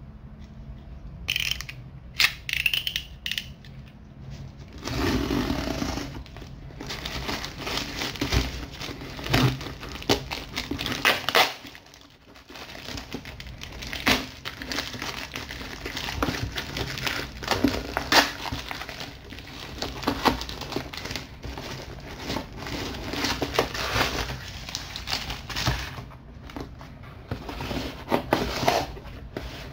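Black plastic mailer bag wrapped in clear packing tape crinkling and tearing as a box cutter slits it open, an irregular run of rustles and sharp crackles.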